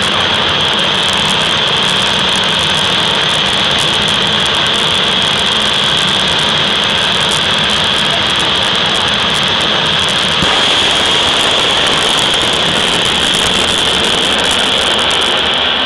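Jet dragster's jet engine running at high power: a loud, steady roar with a sustained high whine over it.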